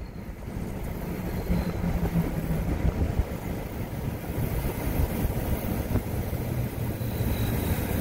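A motor vehicle's engine running steadily with a continuous low rumble.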